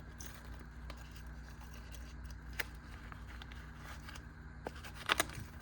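Faint handling sounds of a small folding multi-tool and its case: scattered light clicks, with a louder cluster of sharp clicks about five seconds in.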